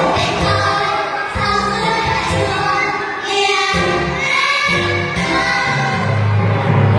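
A children's song sung together by women's and young children's voices over instrumental accompaniment with a steady bass line.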